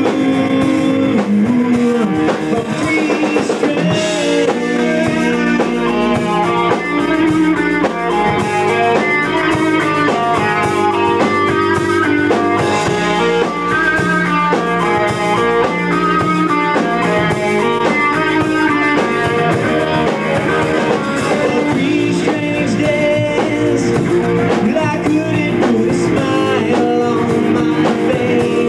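A live rock band playing: electric guitars over a steady drum kit beat.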